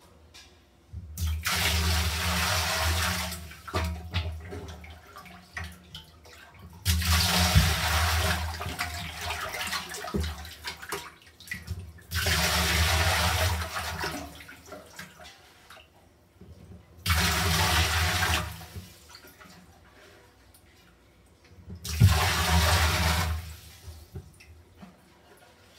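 Water gushing onto a tiled floor in five separate pours, each lasting about two seconds, with short quiet pauses between them.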